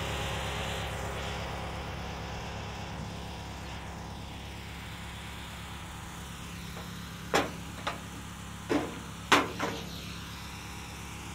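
Garden tractor engine idling steadily. A few sharp knocks sound about two-thirds of the way through.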